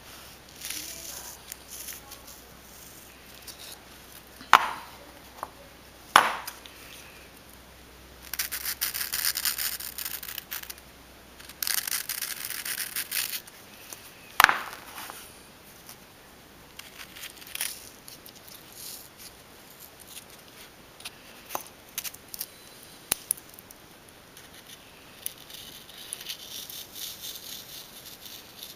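Cuttlefish bone being scraped with a small hand tool in two bursts of about two seconds each, with a few sharp clicks and taps as the ring and tools are handled.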